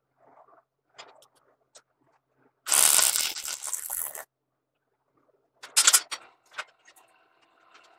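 Electric arc welding on steel flat bar: a crackling, sizzling arc held for about a second and a half, a short tack weld. Light metal clinks of the bars being handled come before it, and a few sharp clanks follow about six seconds in.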